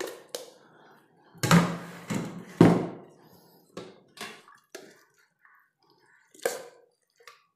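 Stainless steel bowls and a plastic strainer knocking and clattering as they are handled, a string of separate knocks with the loudest three about one and a half to three seconds in, then lighter clicks and one more knock near the end.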